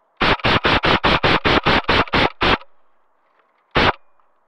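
Airsoft electric gun (AK-12 AEG) firing a rapid string of about a dozen shots at roughly six a second, then a single shot about a second later.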